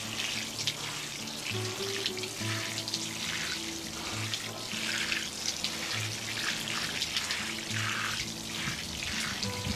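Water from a watering can's rose showering onto soaked potting substrate, a steady hiss of spray, over background music with held low notes.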